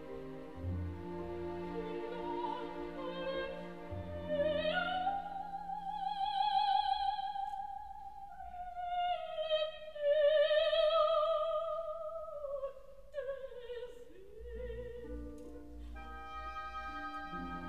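Classical music with an operatic voice singing long, sustained notes with vibrato over orchestral accompaniment. The voice drops out near the end, leaving the orchestra.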